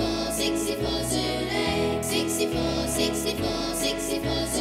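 Instrumental opening of a children's cartoon theme tune with a steady beat. The bass note changes a little under once a second, under a regular shaker-like percussion pattern.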